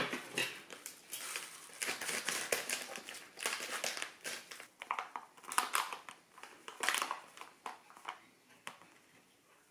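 Foil pouch of molding powder crinkling and rustling in the hands as it is handled and tipped to pour powder into a cup of water. The crinkles come in irregular crackles and die away about a second before the end.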